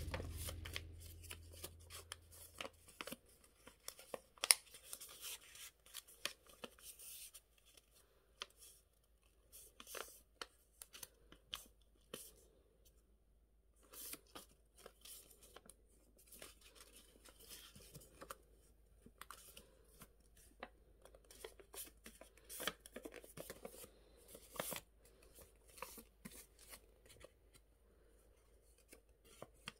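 A sheet of paper being folded and creased by hand: faint crinkling and rustling with irregular sharp crackles, the loudest about four and a half seconds in.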